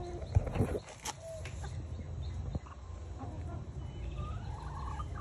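Backyard chickens clucking and giving short pitched calls, with a run of rising calls near the end. A brief loud knock and rustle about half a second in.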